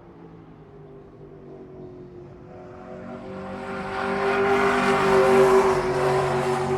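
NASCAR stock car's V8 engine running at a steady high pitch, growing steadily louder to a peak about five seconds in and then easing off a little, as the car approaches and goes by.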